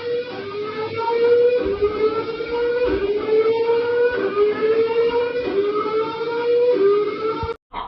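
Earthquake warning alarm sounding: a siren tone that rises in pitch and restarts about once a second, over background noise, cutting off abruptly near the end.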